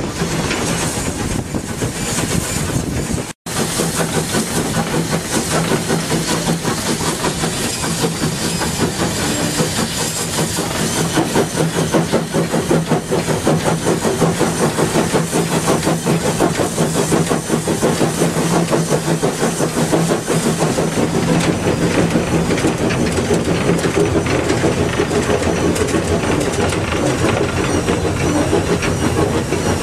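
Steam locomotive under way, heard from its footplate: a steady hiss of steam over the quick, even beat of the engine and the wheels on the rails. The sound drops out for a moment about three seconds in.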